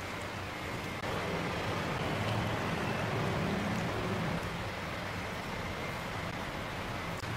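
Spiced beef broth simmering in a wok, a steady bubbling hiss. A spatula stirs through the broth, and it is louder from about one second in until about four seconds in.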